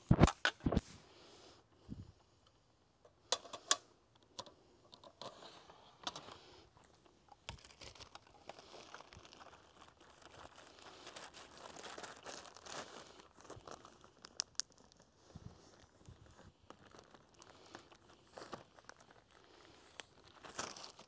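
Plastic and a silver-sided cloth being handled and folded, crinkling and rustling on and off. There are a few sharp clicks in the first second and a couple more about three seconds in.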